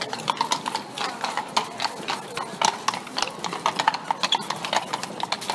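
Horse-drawn carriage on cobblestones: the horse's hooves clip-clop on the stones in a quick, steady run of sharp knocks.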